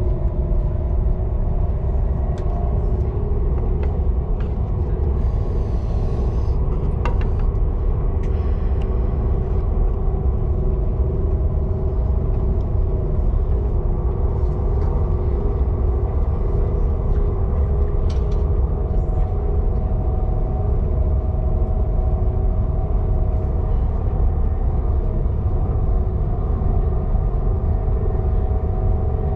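Cabin noise of a KTX high-speed train under way: a steady deep rumble with a constant hum over it, and a few faint clicks about six to nine seconds in.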